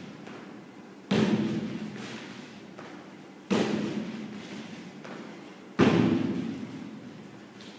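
Feet landing with heavy thuds on a hollow plywood plyo box during repeated box jumps, three times about two and a half seconds apart. Each thud rings on for about a second.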